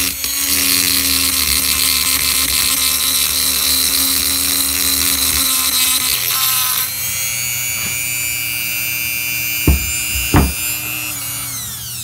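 Handheld rotary tool (Dremel-type) running at high speed with a small grinding stone, grinding out the port of an 80cc two-stroke cylinder. Its whine changes note about halfway through, two sharp knocks come near the end, and the tool starts to wind down at the very end.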